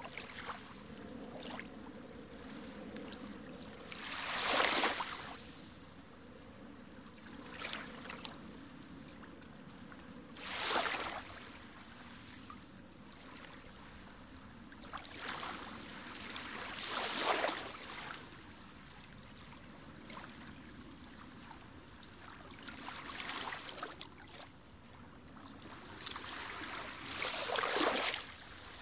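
Sea water sloshing and splashing over a camera held at the surface of shallow water, rising in about seven louder surges a few seconds apart over a steady wash.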